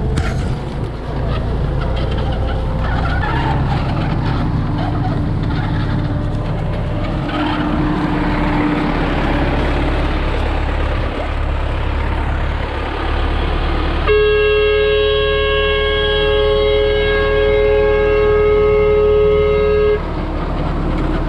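U650 tractor's four-cylinder diesel engine running steadily under load while pulling a row cultivator. About two-thirds of the way through, a horn sounds one long steady note for about six seconds, then cuts off sharply.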